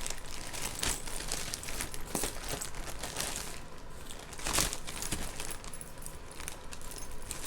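Jewelry being handled and sorted by hand: irregular light clicks and rustling of earrings and chains, with a louder clatter about four and a half seconds in.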